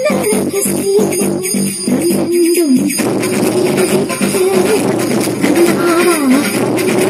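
Loud dance music with a steady percussive beat and a held melody line that wavers and bends in pitch.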